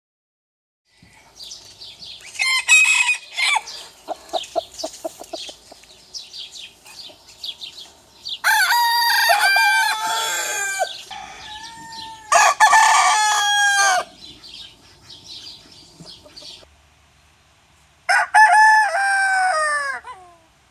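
Roosters crowing: two long crows about eight and twelve seconds in, and another crow near the end that falls in pitch as it fades, over clucking and chirping calls from the flock.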